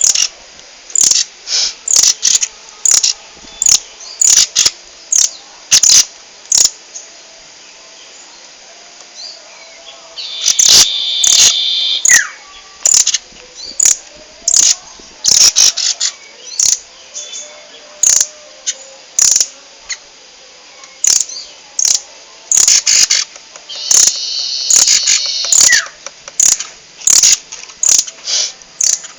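Rambatan loreng bird (a nuthatch) calling loudly in a long series of sharp, piercing chip notes, often one or two a second with short pauses. The notes are broken twice by a longer rapid buzzing trill, about ten seconds in and again near the end.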